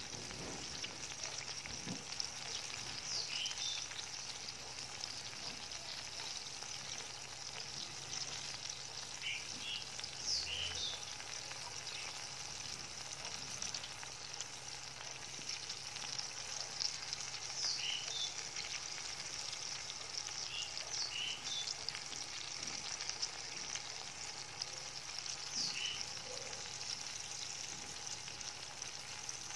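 Sparrow meat frying in oil and gravy in a wok, giving a steady sizzle.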